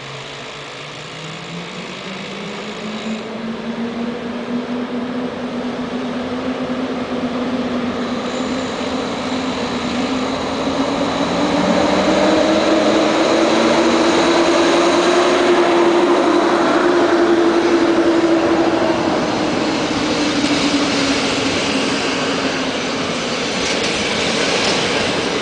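PKP class EP07 electric locomotive pulling away and accelerating past, its traction motors whining in a tone that rises steadily for about fifteen seconds and then dips slightly as it goes by. This is followed by the rumble of passenger coaches rolling past.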